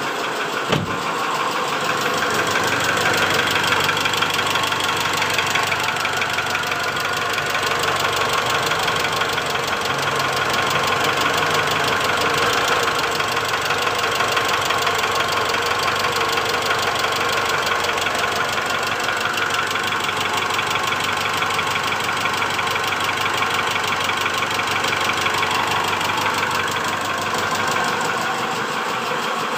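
2008 Mitsubishi Strada Triton GLS diesel engine idling roughly with a rapid tak-tak-tak knock, its number 1 injector connected. The mechanic puts about half of the knock down to the number 1 injector and holds piston slap as another possible cause.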